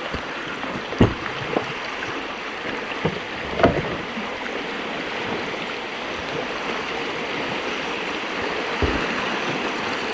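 River rapids rushing around a canoe, a steady wash of water, with a few dull knocks about a second in, near four seconds and near the end.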